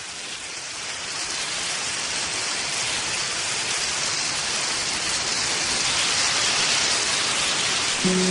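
Rain sound effect: a steady hiss of heavy rainfall that swells in over the first couple of seconds. Instrumental music of the song's intro begins near the end.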